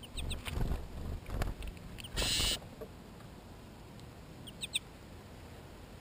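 Small birds feeding at a plastic window feeder: soft thumps and scuffling in the seed for the first second and a half, then a short loud rustling burst. Brief high chirps come near the start and again near the end.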